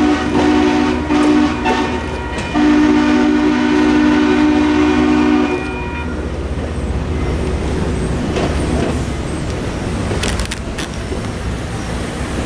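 A train's horn sounding two long blasts of a held chord: the first ends about a second and a half in, and the second runs from under three seconds in to about five and a half seconds. Steady road and traffic noise follows.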